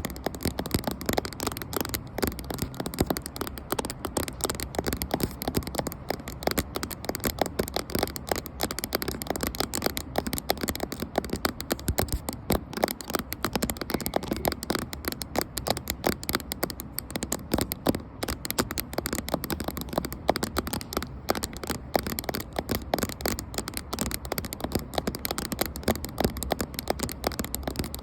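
Fingers tapping rapidly on a camera, a dense run of many small taps a second without pause.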